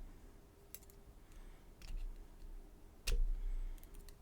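Sparse small clicks from a Mul-T-Lock Garrison padlock and lock-gutting tools being handled, with one louder knock about three seconds in.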